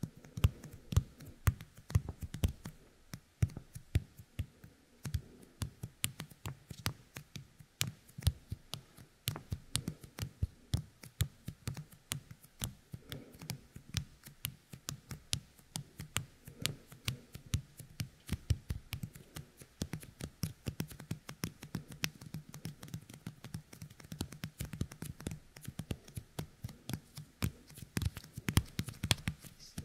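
Fingertips coated with the sticky resin of a yokai kemuri toy being pressed together and pulled apart right at the ear of a binaural dummy head, giving a steady run of small, irregular sticky clicks, several a second.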